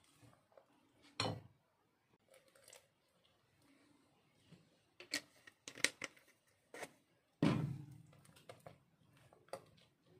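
Silicone spatula stirring mashed banana in a glass mixing bowl: irregular scrapes, clicks and knocks against the glass, with one louder thump about seven and a half seconds in.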